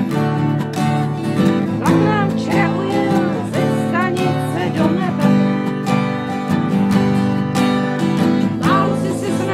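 Acoustic guitars strumming a steady accompaniment in an instrumental passage of a song, with a wavering melody line sliding over the chords.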